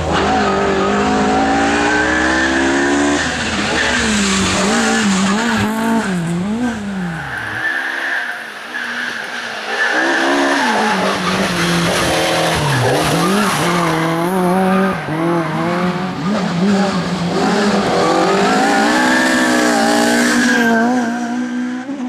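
Ford Sierra RS500 Cosworth rally car's turbocharged four-cylinder engine revving hard, its pitch rising and falling again and again through gear changes, with tyres squealing as the car slides through corners. The engine eases off briefly about eight seconds in, then comes back on full power.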